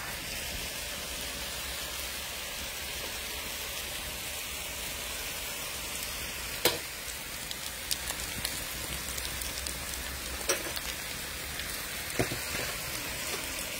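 Chopped vegetables sizzling steadily as they fry in a hot pan, with a few sharp clicks now and then.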